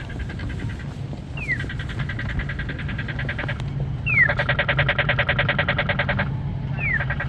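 Polara accessible pedestrian signal sounding its rapid-tick walk indication. A short falling chirp opens each run of fast, evenly spaced ticks, and the runs repeat three times, the middle one louder.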